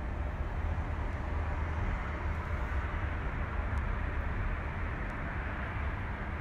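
Steady outdoor background noise: a constant low rumble with an even hiss above it, with no distinct events.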